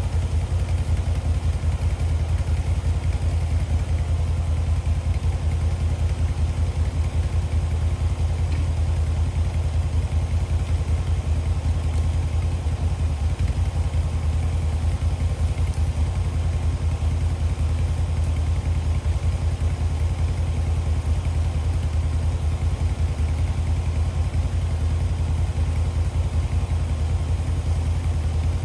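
ATV (4-wheeler) engine running steadily at an even, low pitch, with no revving or change in load.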